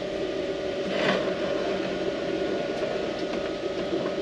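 A steady mechanical hum of a small motor, with a brief hiss about a second in and a few faint clicks.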